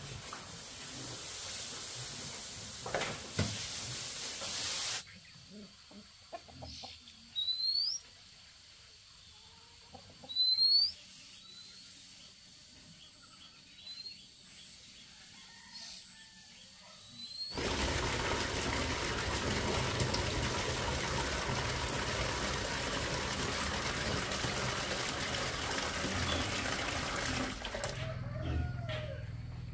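A hose spraying water for the first few seconds. Then a quiet stretch with a few short, rising bird chirps, two of them loud. In the last third comes a steady rushing noise.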